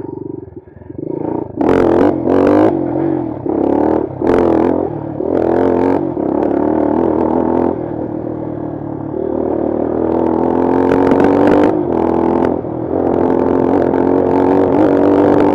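Bashan Brozz 250 dual-sport motorcycle's single-cylinder engine revving in several short throttle bursts, then pulling more steadily with its pitch climbing from about ten seconds in.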